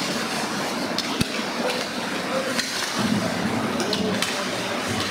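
Ice hockey play: a steady hiss of skate blades on the ice, broken by several sharp clacks of sticks and puck that ring in the arena.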